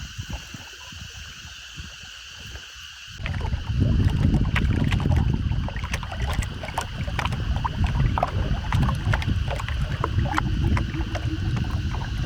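Bamboo raft being paddled: water splashing and dripping from the paddles as they work. About three seconds in the sound jumps louder, with heavy low wind rumble on the microphone under the splashes.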